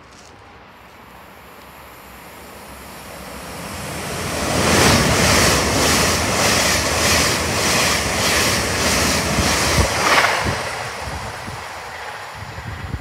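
Great Western Railway Hitachi Intercity Express Train passing at speed on the near track: a rising rush of wheels on rail and air that becomes loud, pulses about twice a second as the carriages go by, then dies away as the train recedes.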